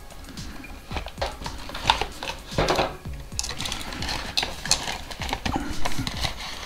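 Cardboard packaging and plastic-bagged cables being handled inside a box: rustling with scattered clicks and knocks, the loudest about two and a half seconds in.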